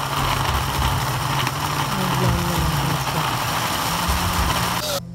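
Electric countertop blender motor running steadily, chopping chilies with a little water into a paste. The sound drops out briefly near the end.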